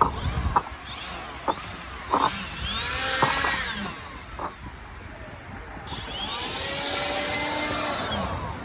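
Split firewood pieces knocking together several times as they are handled and stacked. Vehicles pass by twice, the second louder, from about six seconds in.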